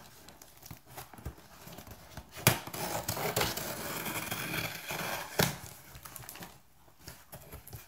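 Packing tape being ripped along the top of a cardboard shipping box. A sharp snap comes about two and a half seconds in, followed by about three seconds of continuous ripping and crinkling, ending in another sharp snap. Quieter rustling of the box being handled comes before and after.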